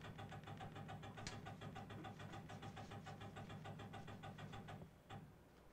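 Faint steady hum from the Tormach Slant-Pro CNC lathe with its axes powered while the turret is jogged in thou increments, with a rapid, even ticking over the hum; it fades out about five seconds in.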